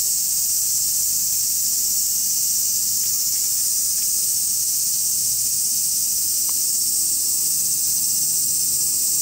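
Steady, high-pitched chorus of insects that runs on without a break.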